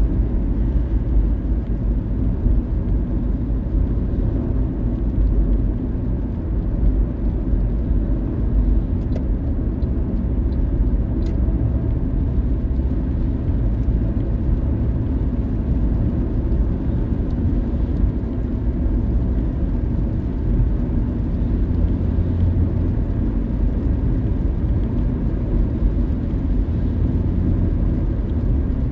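Steady low rumble of tyre and engine noise inside a car's cabin while driving at a constant speed, with a few faint ticks.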